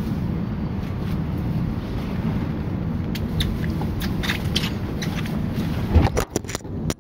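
Running noise of a JR 201 series electric train heard from inside the car: a steady low rumble. Light clicks come in from about three seconds in. Near the end there is a loud knock, and the rumble briefly drops away amid a few sharp clicks.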